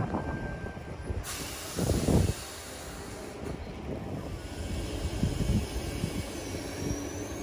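Sydney Trains Tangara electric double-deck train pulling out past the platform. About a second in, a sudden steady hiss of air sets in, typical of the brakes releasing. Under it is a low rumble, with a brief louder surge about two seconds in and a faint rising whine near the end.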